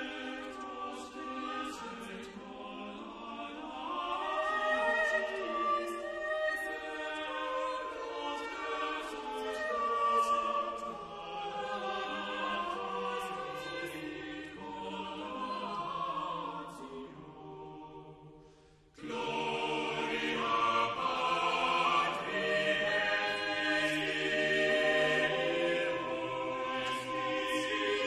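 Choral music: voices singing sustained notes together in a sacred, chant-like style. It breaks off briefly about two-thirds of the way through, then resumes.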